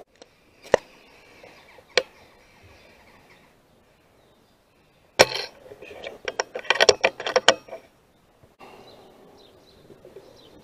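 A single sharp gunshot about five seconds in, taken at a corvid on a telegraph pole, then a quick run of sharp clatters and short calls for about a second and a half as the bird is hit and falls. Two short sharp sounds come earlier, about one and two seconds in.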